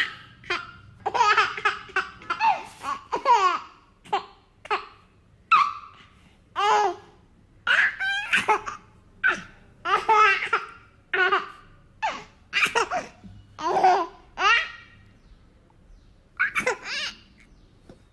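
Baby boy laughing in repeated bouts of high-pitched giggles and squeals, with short gaps between each burst of laughter.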